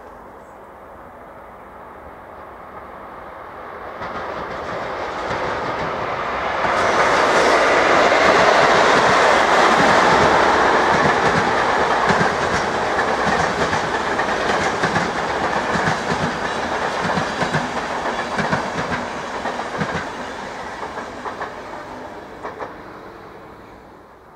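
RegioJet passenger train of yellow coaches passing by. It grows louder over the first several seconds, is loudest in the middle, and clatters with repeated clicks of wheels over rail joints and points. It fades away near the end.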